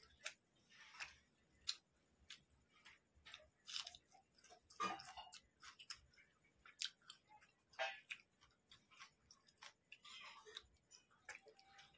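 Close-miked eating sounds of a person chewing rice and chicken curry: soft, irregular mouth clicks and wet lip smacks, several a second, with a few brief louder bursts.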